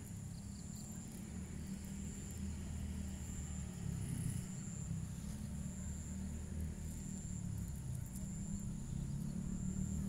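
Steady low engine rumble, like a vehicle running nearby, under a thin, steady high-pitched whine.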